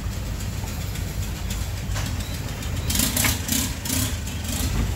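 Boat engine running steadily with a low rumble, with several short bursts of hiss about three seconds in.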